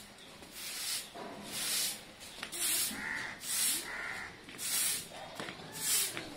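Short-handled soft grass broom sweeping a concrete floor, a repeated brushing swish about once a second as it pushes loose debris along.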